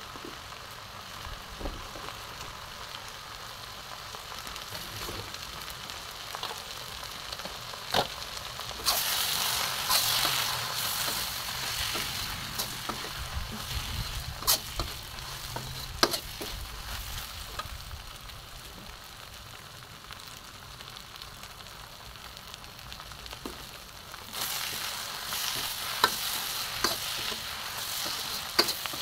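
Noodles, pork and vegetables sizzling in a wok as a metal spatula tosses them, with sharp clinks of the spatula against the wok. The sizzle swells during two spells of tossing, about nine seconds in and again near the end.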